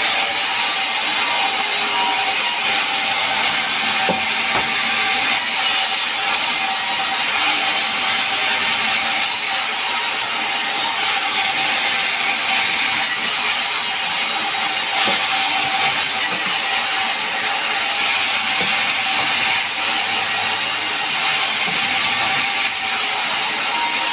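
Sawmill saw running steadily while cutting pine timber: a loud, continuous hissing noise with a steady whine.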